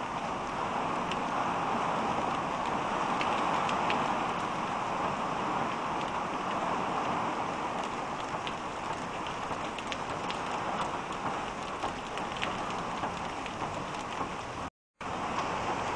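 Heavy rain pouring onto wet pavement: a steady dense hiss with many sharp drop hits close by. The sound cuts out completely for a split second near the end.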